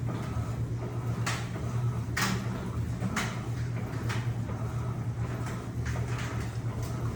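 Electrolux LPE16 washing machine running a wash with a comforter inside: a steady motor hum under repeated swishes of water and wet fabric, about one a second.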